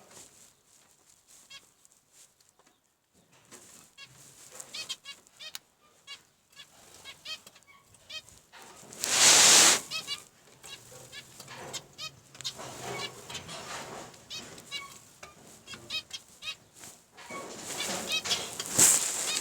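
Zebra finches chirping in many short, quick calls, with a loud rustling burst about halfway through and another near the end.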